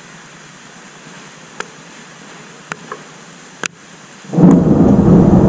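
Thunder: after a faint steady hiss broken by a few sharp ticks, a loud low rumble breaks out suddenly about four seconds in, just after a lightning flash, and keeps going.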